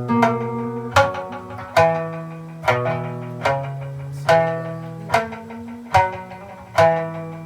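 Okinawan sanshin playing a slow instrumental: single plucked notes about one a second, each ringing out.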